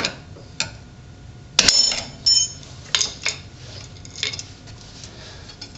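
Metal clinks and clicks from the steel shoes and springs of a 2001 Ford Focus rear drum brake being worked off by hand. One sharp clink that rings briefly comes about a second and a half in, followed by a few lighter clicks.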